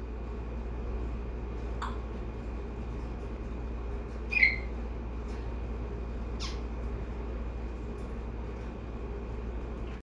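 African grey parrots giving a few short calls, the loudest a brief squawk about four and a half seconds in, over a steady low hum.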